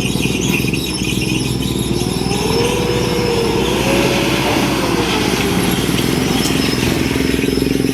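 Heavy diesel vehicle engine running hard with a steady clatter, while a wavering whine rises and falls for a few seconds in the middle.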